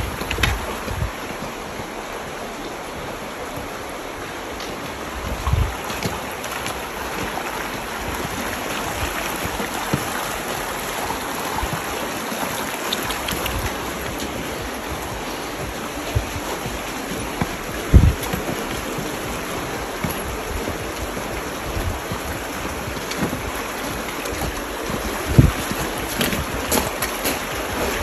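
Shallow creek running steadily over gravel, a constant rushing hiss. A few brief low thumps break in, the loudest about two-thirds of the way through.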